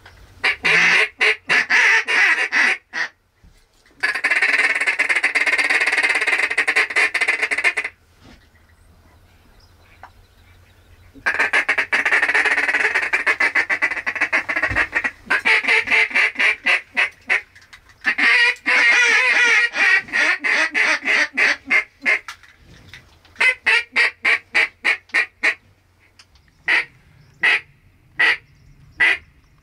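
Duck call blown by a hunter: long runs of rapid quacking chatter (feed call) broken by short pauses, then a string of single, evenly spaced quacks near the end.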